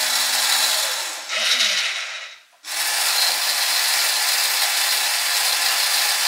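Small electric gear motor of a model ship's deck-crane winch running steadily as it lowers the daughter boat onto the deck. It stops briefly about two and a half seconds in, then runs again.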